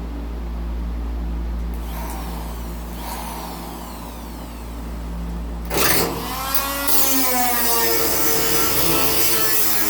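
Cut-off wheel (zip wheel) cutting through the steel sheet metal of a truck cab corner: a high whine that drops in pitch as the wheel bites in, with a sudden louder rise about six seconds in and harsh cutting noise after it, over a steady low hum.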